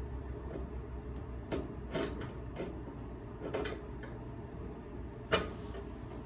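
Scattered light knocks and clicks, one sharper knock about five seconds in, over a steady low hum.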